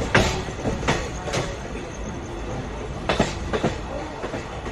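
Passenger train wheels clacking over rail joints and points, heard from the open door of a moving coach, over a steady low rumble of the running train. The sharp clacks come in small clusters: a few in the first second and a pair about three seconds in.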